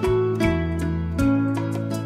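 Instrumental background music of plucked strings: single notes a few per second, each fading after it is struck, over low bass notes.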